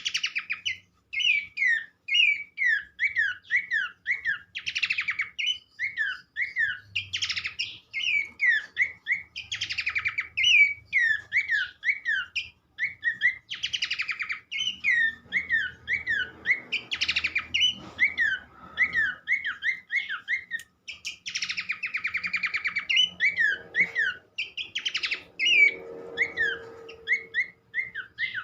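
Pelanduk semak (Horsfield's babbler) song: a fast, unbroken run of short down-slurred whistled notes, broken every couple of seconds by harsh buzzy phrases. The recording is used as a bird-keepers' lure to set other babblers singing.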